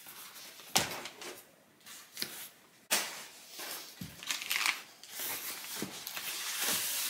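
Cardboard mailer box being handled and opened: flaps bent and scraped with rustling, and sharp knocks of the box about a second in and about three seconds in, then a steadier rustle of cardboard and paper over the last two seconds.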